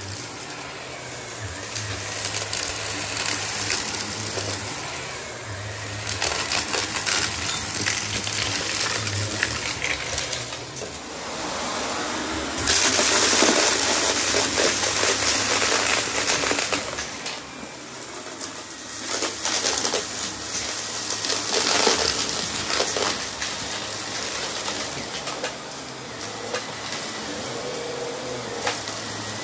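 Shark Navigator Lift-Away upright vacuum running over a shag rug, its floor nozzle sucking up bits of debris that crackle and rattle up the hose as a dense crunching. The crunching grows louder for a few seconds about halfway through.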